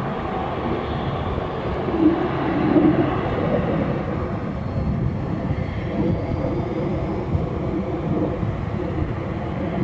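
Business-jet turbofan engines at taxi power: a steady low rumble with a faint high turbine whine.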